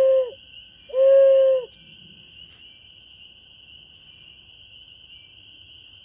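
Hoot flute, an owl-hoot locator call, blown in two hoots, each a steady tone under a second long: the first ends just after the start, the second comes about a second in. It is used to shock-gobble roosting turkeys. Behind it, a steady high-pitched chorus of spring peepers.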